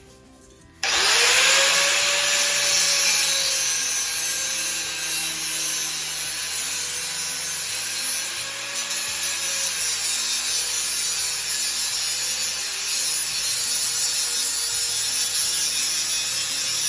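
Handheld electric grinder starting up, its motor tone rising as it comes to speed about a second in, then grinding steel steadily with a harsh rasping hiss.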